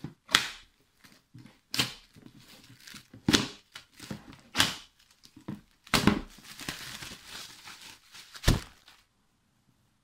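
Clear plastic shrink wrap being torn and pulled off a board game box, crinkling and crackling in sharp bursts, with a knock near the end; it stops about nine seconds in.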